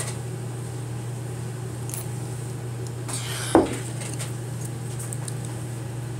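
A ceramic mug set down on a table once, about three and a half seconds in, over a steady low hum and a few faint ticks.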